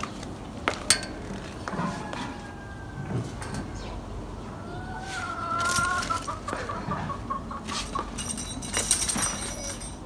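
Rooster crowing once, a long wavering call of about three seconds starting about halfway through. A couple of sharp clicks come near the start, and thin high chirps near the end.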